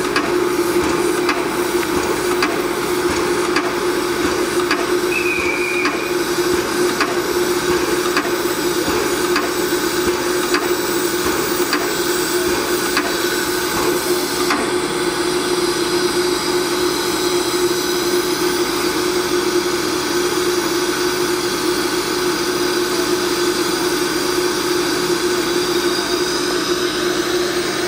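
ČSD class 434.2 steam locomotive standing in steam, with a steady hiss over a constant hum and regular knocks about once a second.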